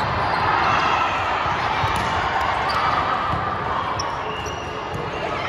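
Gym sounds during an indoor volleyball rally: the ball being hit and players moving on the hardwood court, with voices carrying through the echoing hall as a steady din.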